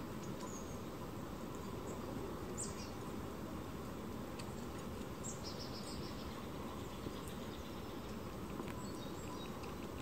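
Faint, high, thin calls of small songbirds, a few short notes, some falling in pitch, heard about half a second in, near two and a half seconds and around five to six seconds, over a steady background hiss and rumble.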